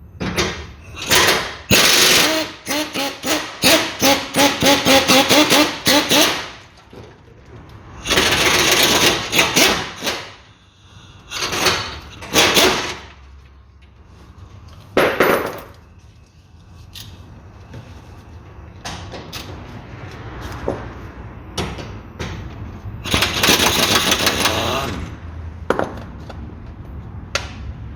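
An impact wrench hammers in several rattling bursts as it loosens the 22 mm nut on a suspension control arm's mounting bolt. The longest burst runs about four seconds near the start, followed by shorter bursts later.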